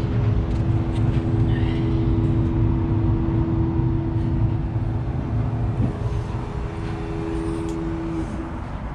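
Steady, loud low rumble with a steady droning hum that stops near the end.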